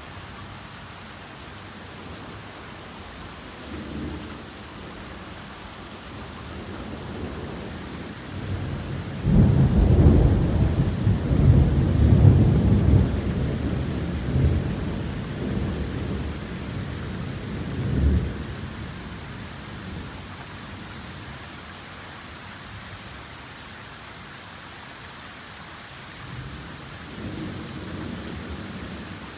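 Torrential rain hissing steadily, with a long roll of thunder that builds from about seven seconds in, cracks loudest around ten seconds and rumbles on, fading by about twenty seconds. Fainter rumbles of thunder come near the start and again near the end.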